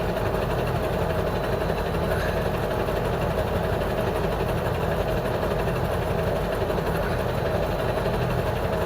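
KAMAZ truck engine running steadily.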